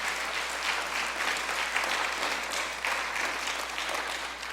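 Church congregation applauding, a steady patter of many hands clapping that starts to die down near the end.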